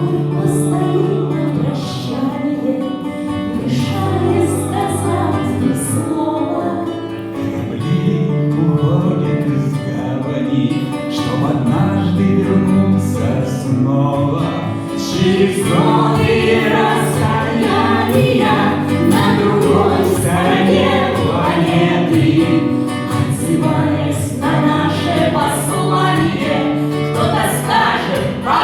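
Several voices singing a song together to instrumental accompaniment, the sound growing fuller about halfway through.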